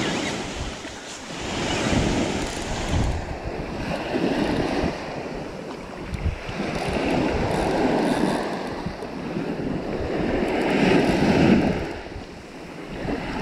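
Small surf breaking and washing up the sand in swells a few seconds apart, with wind buffeting the microphone; the loudest swell comes near the end.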